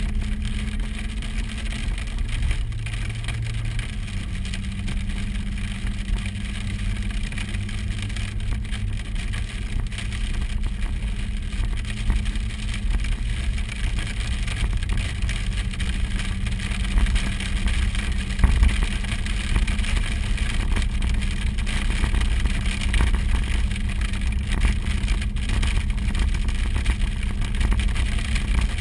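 A 4x4 vehicle driving, its engine and road noise heard from inside the cabin: a steady low hum with a constant haze of faint ticks over it, and one louder knock near the middle.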